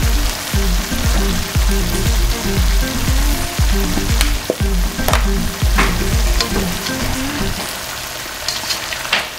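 Pork belly sizzling as it fries in a pot, under background music with a steady beat that stops about three-quarters of the way through. Near the end a slotted spoon scrapes and clacks against the pot as the meat is stirred.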